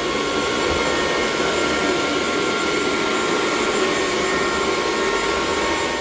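Miele Scout RX2 robot vacuum cleaner running as it sweeps: a steady whir with a few faint high tones over it.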